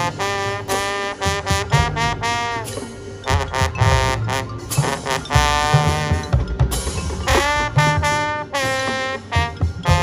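High school marching band's brass section playing held chords in full, with several notes sliding up or down into pitch, low horns underneath.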